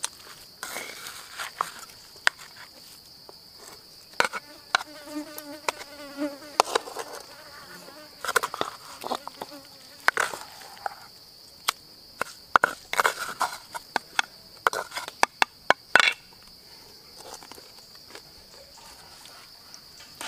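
A wooden spatula scrapes and knocks against a stone mortar and a coconut-shell bowl, giving a scatter of sharp clicks and scrapes, thickest in the second half. Under it is a steady high insect drone, and a fly buzzes close by for a few seconds, about five seconds in.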